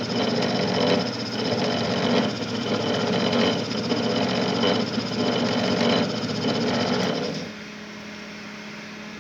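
Homemade coil-winding machine running, its VW Beetle generator driving the mandrel through a gear reducer that growls inside, which the owner takes for wear in the old reducer. A faint pulse comes about once a second, and about three quarters of the way through the sound drops to a quieter steady hum.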